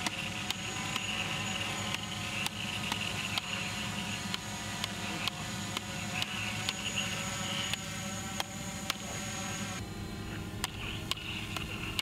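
Steady electronic lightsaber hum from the sabers' sound boards, with sharp clacks of polycarbonate blades striking each other in a duel, coming irregularly at about two a second.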